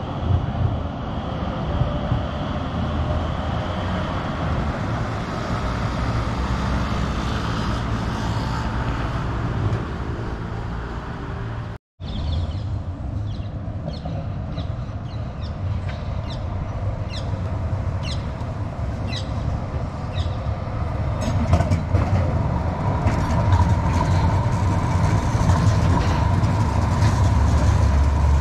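Tram running on the track: a steady low rumble that breaks off briefly about twelve seconds in. It is followed by a run of short high-pitched clicks from the wheels on the rails and, near the end, a steady whine.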